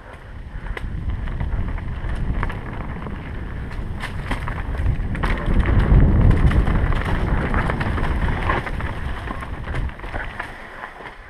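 Wind buffeting the camera microphone as a downhill mountain bike rolls along a dirt trail, with scattered clicks and knocks from the bike over rough ground. It builds up, is loudest about six seconds in, then eases off.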